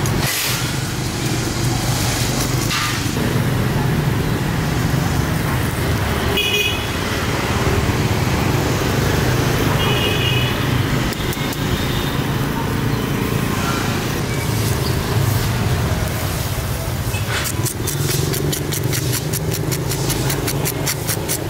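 Street traffic running steadily, with two short vehicle horn toots about six and ten seconds in. Near the end comes a fast series of scratchy strokes.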